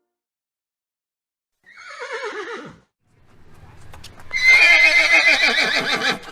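Horse whinnying: a short quavering call falling in pitch about two seconds in, then a longer, louder whinny with a fast tremble from about four seconds on.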